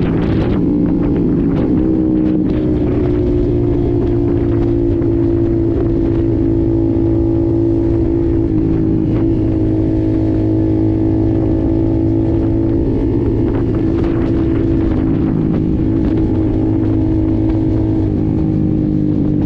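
Honda CBR150R's single-cylinder engine running at nearly steady revs, its pitch level with a few small dips and shifts along the way.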